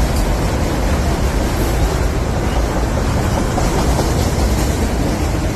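Freight train autorack cars rolling past close by: a loud, steady rumble of wheels on rail.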